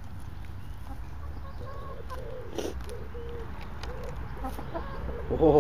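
Domestic hens clucking: a run of soft, short low calls, then one louder call near the end.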